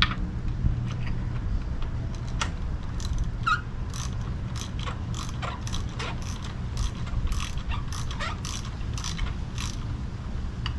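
Socket-wrench ratchet clicking in short runs as a spark plug is backed out of an outboard's cylinder head, the pawl clicking on each return swing.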